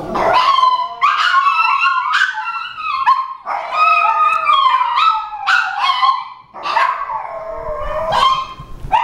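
Chihuahua barking and howling: a run of high-pitched, drawn-out yips and howls with pitch that bends up and down.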